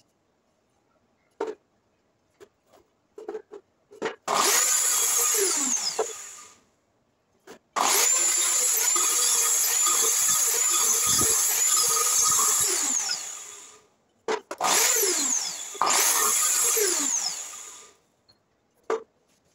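Einhell sliding mitre saw running three times, the blade cutting through a wooden block, its motor whining and spinning down with falling pitch after each run. A few light knocks come first as the wood is set in place.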